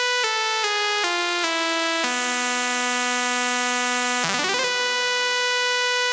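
Buzzy synth lead stepping down note by note, holding a lower note, then sliding back up to its starting pitch with a brief wobble about four seconds in: a pitch glide from one note into another.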